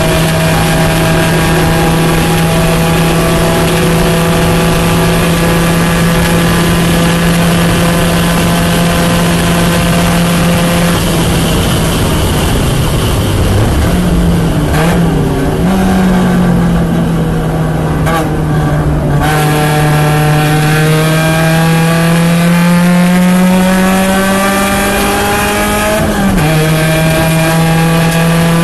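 Porsche 944 race car's four-cylinder engine under race load, holding steady revs for about ten seconds. The revs then drop and waver as the car slows, climb steadily as it accelerates, and fall sharply at an upshift near the end.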